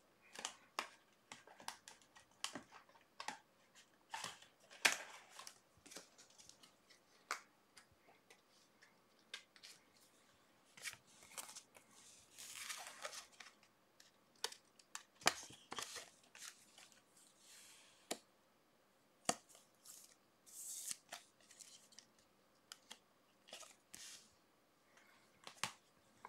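Stadium Club Chrome baseball cards and their pack wrappers being handled: a faint, irregular string of light clicks and flicks as cards are flipped through and slid. There are a few longer rasping tears or slides, about halfway and again later.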